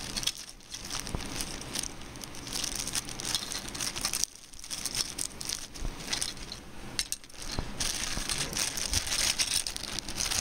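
Clear plastic bag crinkling and rustling as it is handled, in bouts broken by a few short pauses.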